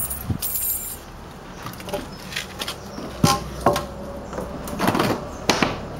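Keys jangling and metal clanking as a barred steel gate is worked open: scattered clicks, then a few sharp metallic knocks about three seconds in that ring briefly.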